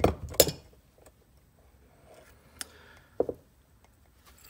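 Brief knocks and clicks of metal hand tools and solenoid parts being handled and set down on a cloth-covered workbench: a loud cluster in the first half-second, then two single clicks between two and a half and three and a half seconds in.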